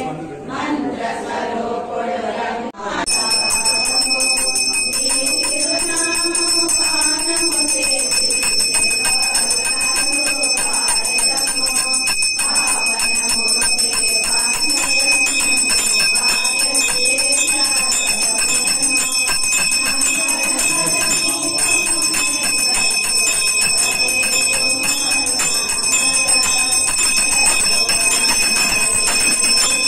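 A temple hand bell rung rapidly and without pause during the aarti worship, starting abruptly about three seconds in, with a voice chanting beneath it.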